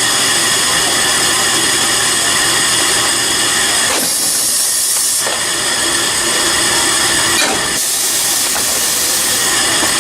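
Factory production-line machinery running loudly and steadily, with several whining tones over a mechanical din. A sharp hiss breaks in about four seconds in and lasts just over a second.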